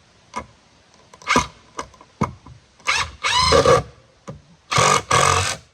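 Power drill run in short bursts, the longest about a second, with a few knocks of wood in between.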